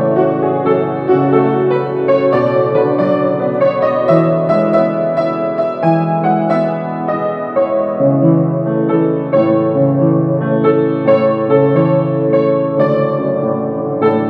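Piano music, a slow run of notes sounding one after another.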